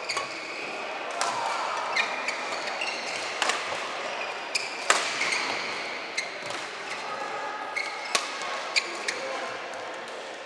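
Badminton rally: sharp cracks of rackets striking the shuttlecock every second or two, the loudest about five seconds in, with court shoes squeaking on the floor and voices in the background.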